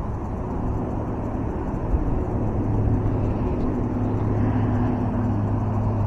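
Steady low hum of motor traffic, a little stronger from about three seconds in.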